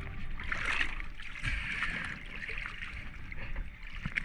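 Sea water sloshing and splashing against the side of an inflatable boat as a large grouper is lifted out of the water and aboard, with a sharp splash or knock near the end.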